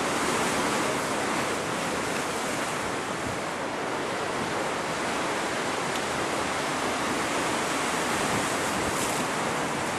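Steady rushing of strong post-storm wind and rough water, with wind buffeting the microphone.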